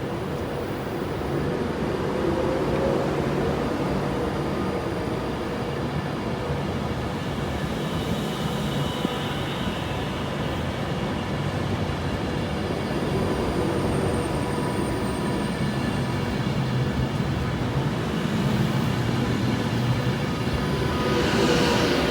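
A train running through the station: a steady rumble with several whining tones, one of which rises in pitch about a third of the way in.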